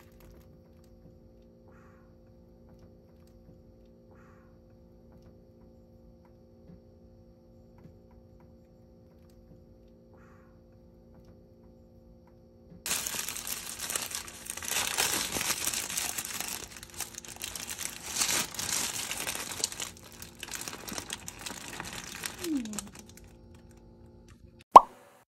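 A faint steady hum, then from about halfway through roughly ten seconds of paper crinkling and rustling as a bagel sandwich's deli-paper wrapper is handled and opened. A single sharp click near the end is the loudest sound.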